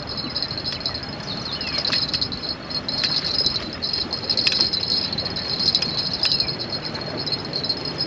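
Insects chirring steadily in a high band, with a few short falling bird calls and a low steady rumble underneath.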